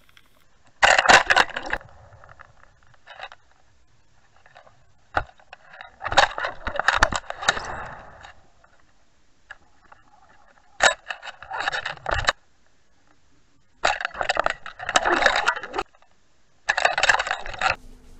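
Five bursts of rattling and scraping, each a second or two long, with sharp clicks between them, picked up by an underwater camera rig towed behind a trolling boat.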